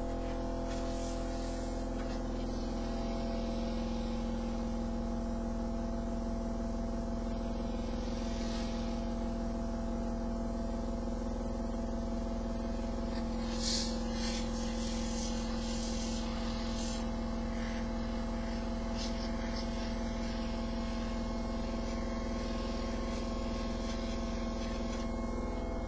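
Philco car radio under test playing a steady buzzing tone through its speaker, several pitches at once over a low hum. Short hissing sprays come several times, the strongest about fourteen seconds in, as the radio's parts are cooled.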